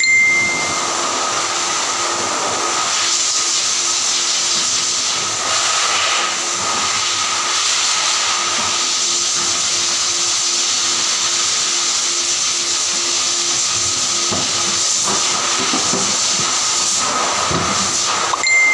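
Pet grooming blow dryer running with a steady, even hiss of rushing air.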